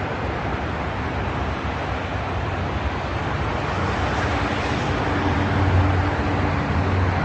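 An unexplained droning sound from the night sky: a steady rushing rumble, with a low hum that comes in about halfway through and grows louder.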